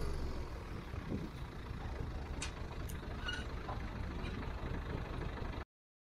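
Tractor engine running steadily as the tractor drives along a dirt track, a low rumble with a few faint rattles. The sound cuts off suddenly near the end.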